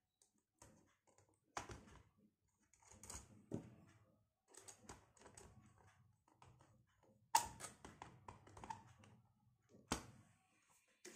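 Scattered small clicks and taps of hands working a wire into the brass switch terminals of a white plastic switch-and-socket board, with two sharper knocks, about 7.5 and 10 seconds in.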